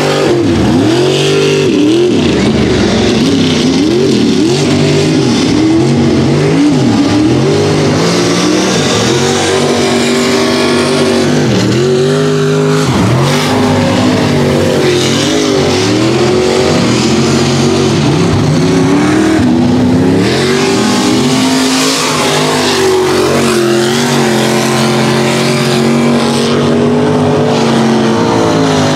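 Mud-racing trucks' high-powered engines at full throttle, revving hard, the pitch dropping and climbing again many times as they accelerate and shift.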